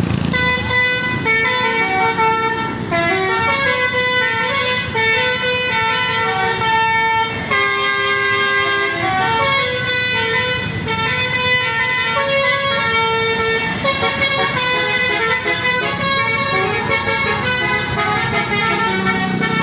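Indonesian bus 'telolet' multi-tone horn playing a tune: several horn notes sound at once and change pitch quickly, in a continuous melody.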